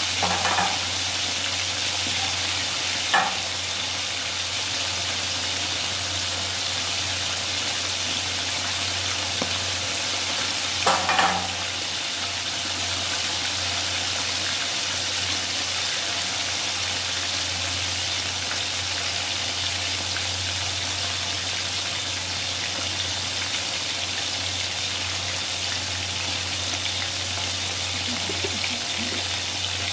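Battered chicken pieces deep-frying in a wok of hot oil: a steady sizzling hiss of the bubbling oil, with a few brief louder moments near the start, about three seconds in and around eleven seconds in.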